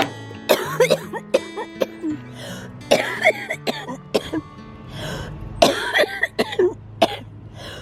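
A woman with cystic fibrosis coughing over and over in a fit of short, harsh coughs, with some throat clearing, over background music with held notes.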